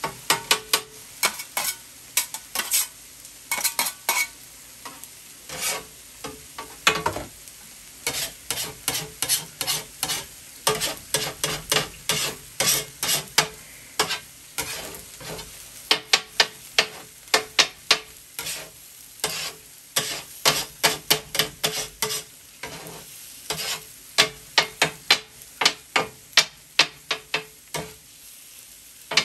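Metal bench scraper chopping and scraping egg on a hot steel flat-top griddle for fried rice: quick, sharp metal-on-metal taps and scrapes, about two to three a second, over a steady sizzle of frying food.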